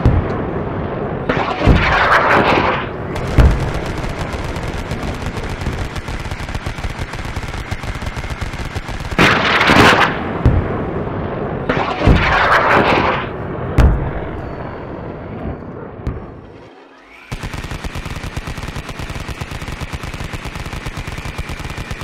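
Battle sound effects of rapid, continuous machine-gun fire with several heavy explosion blasts, three big ones and a few sharper thumps. A little after halfway it dips, then switches abruptly to a steadier rattle of fire.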